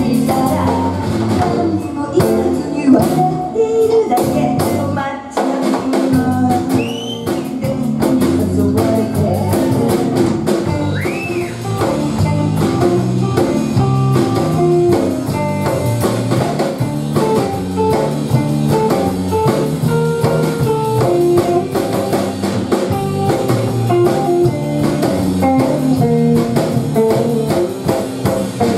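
Live band music: an electric guitar lead on a semi-hollow electric guitar over electric bass and a drum kit keeping a steady beat.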